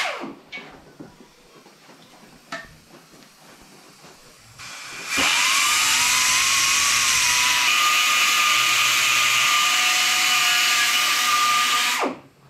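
Hand-held die grinder stopping at the start, then, after a quiet pause with a few light clicks, spinning up about five seconds in and running steadily with a high whine and hiss for about seven seconds before stopping. It is grinding clearance into the bottom edges of a 2JZ engine block's cylinder bores so the stroker kit's connecting rods don't touch.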